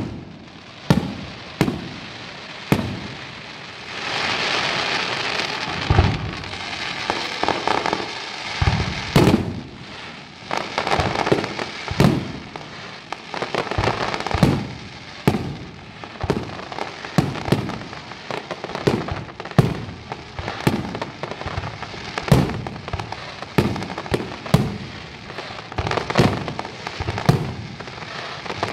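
Aerial firework shells bursting in a rapid barrage, a sharp bang every second or so, with a dense hissing stretch from about four to nine seconds in.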